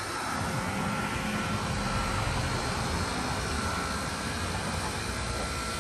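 Steady mechanical drone and hiss with a faint, constant high whine.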